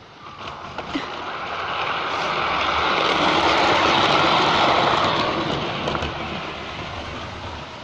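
A garden-railway model of Percy the tank engine, pulling a wagon, running past close by: a whirring rush of the locomotive and its wheels on the rails that swells, is loudest about four seconds in as it goes by, then fades as it moves away.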